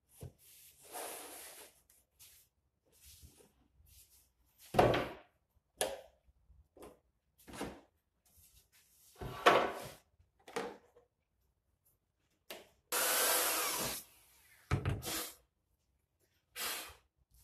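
White MDF cabinet panels being handled and fitted together: a series of separate wooden knocks and scrapes, the loudest about five and nine and a half seconds in. Near the end comes a rasping noise about a second long.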